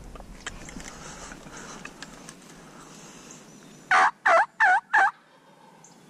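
Turkey yelping: four loud, short notes in quick succession, about four seconds in.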